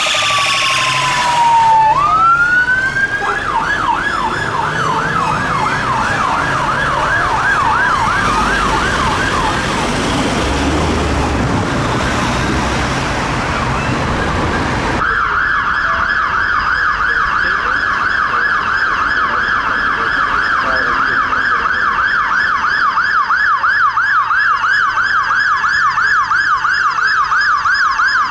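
UK emergency sirens: police cars and a police van sound a falling wail, then a fast yelp with other sirens crossing it and a rush of road noise as the vehicles pass. After a cut about fifteen seconds in, a London Fire Brigade fire engine's siren runs on a steady fast yelp, with a second siren wailing over it near the end.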